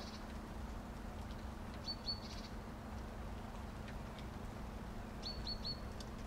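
A small bird chirping: a run of two short, high notes about two seconds in and a run of three about five seconds in, over steady background noise with a low hum.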